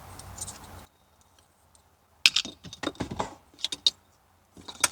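Irregular sharp clicks and small rattles of plastic cable connectors being handled, the ends of a fiber-optic cable and its plugs.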